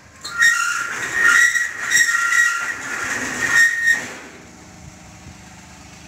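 Metal gate being pushed open, squealing in a high, steady screech for about three and a half seconds, with a few clanks, then stopping.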